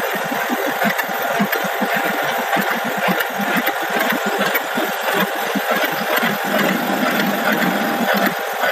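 IECHO GLSA automatic multi-ply fabric cutter running, its knife chattering rapidly as it cuts through the fabric, over a steady hiss.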